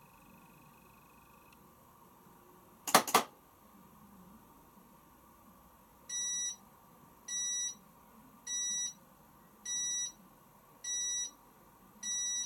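Washing machine's electronic beeper sounding six times, evenly spaced about a second apart, each beep about half a second long. A sharp double click comes about three seconds in, before the beeps.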